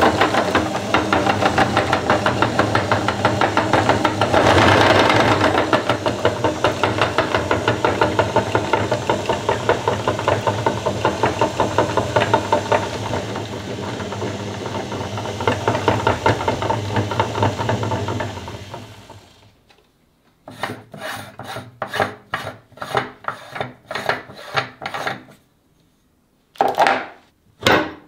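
Cast-metal meat grinder crushing popping-candy chocolate: a continuous grinding and rasping that pulses steadily, then dies away about two-thirds of the way through. After it come scattered short clicks and knocks of the metal parts, with two louder knocks near the end.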